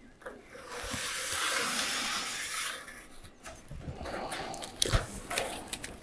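Pencil scratching a long line along a ruler on sheet metal, a steady scratchy hiss lasting about two seconds, then scattered light clicks and taps as the ruler and metal piece are handled.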